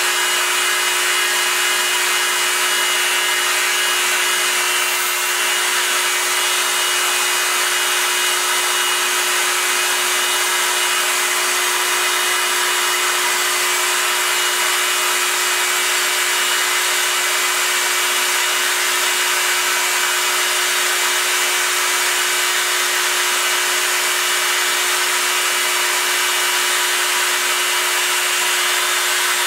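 Proxxon MF 70 micro milling machine running under CNC control, its spindle driving an end mill through an aluminium bar. It gives a steady, unchanging hum with an even hiss of cutting over it.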